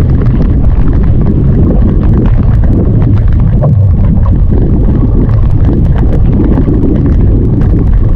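Strong wind buffeting the microphone in a rain squall on open water, a steady low rumble, with many small ticks of rain and paddle spray striking the camera.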